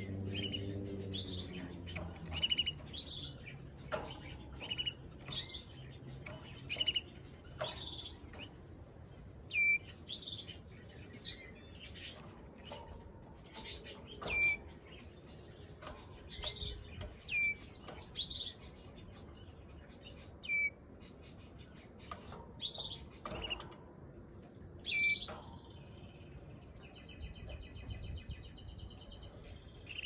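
Male Waterslager canary giving short, high chirping notes every second or two, then a rolling trill near the end. There are a few light clicks among the notes.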